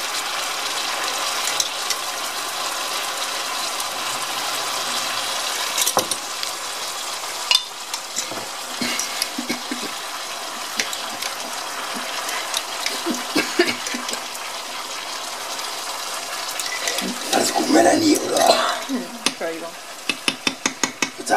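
Jackfruit pieces sizzling as they fry in hot oil in a ceramic pan. The sizzle thins out after a few seconds as barbecue sauce is poured over them to deglaze the pan. Near the end come a burst of clatter and a quick run of sharp taps.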